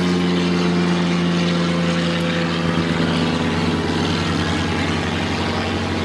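A motor running steadily with a low hum, taking on a fast throb about halfway through.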